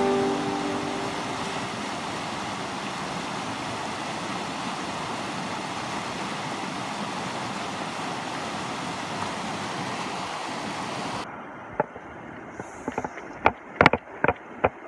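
Rushing white water of river rapids, a steady even rush that cuts off abruptly about eleven seconds in. It gives way to a quieter outdoor background with a few sharp clicks near the end.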